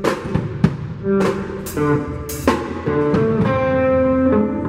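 A band playing, a drum kit with cymbal crashes and snare hits under held chords that change every second or so.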